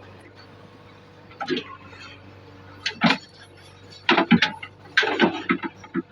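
Diesel engine of a JCB 3DX backhoe loader running at a steady idle, with a series of irregular knocks and clatters over it, the loudest bunched near the middle and end.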